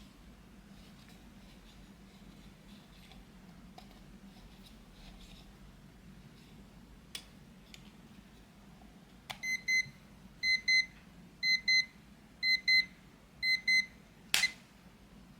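Quartz table alarm clock's alarm beeping in quick double beeps, a high electronic tone, about one pair a second, five times. A sharp click then cuts it off, with lighter clicks of handling before the alarm starts.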